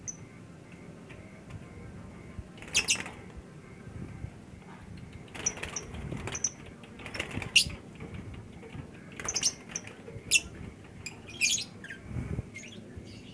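Lovebird giving short, shrill squawks at irregular intervals, about eight in all, as it is handled in its cage.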